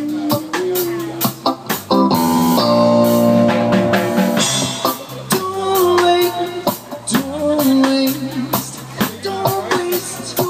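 Live band playing: electric guitar over a steady drum kit beat, with some singing.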